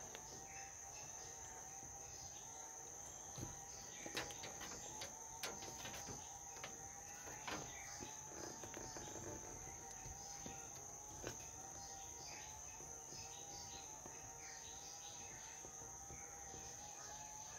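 Steady high-pitched cricket trill with scattered bird chirps. A few sharp clicks and taps come between about three and eleven seconds in, the loudest around four and five seconds in, from a hand tool working rubber beading into a three-wheeler's window frame.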